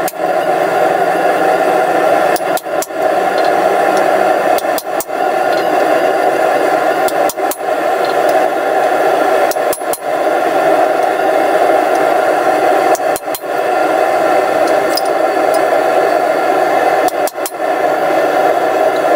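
Hammer striking a chisel to cut lines into a steel bar for an alligator twist pattern. The blows come mostly in pairs every two to four seconds over a steady background roar.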